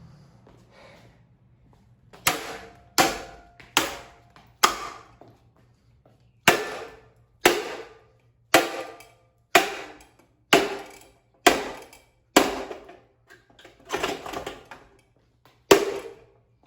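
A dozen or so hard blows striking a Hampton Bay Gazebo ceiling fan, each a sharp impact with a short ringing decay, coming about once a second with a brief pause partway through.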